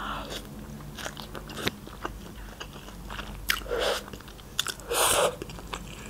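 Close-miked mouth sounds of chewing a mouthful of instant noodles: soft wet chewing with scattered small clicks, and two louder, short wet mouth noises, one near the middle and one about five seconds in.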